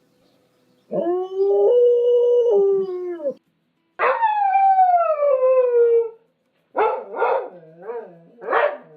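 A dog howling: a long held howl that steps up in pitch midway and drops at the end, then a second howl that slides steadily downward, then four short broken howls near the end.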